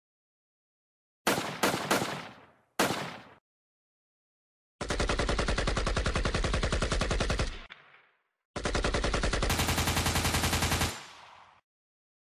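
Gunfire sound effects: three quick shots and then a single shot, each with a short fading tail, followed by two bursts of rapid automatic machine-gun fire, each lasting about three seconds.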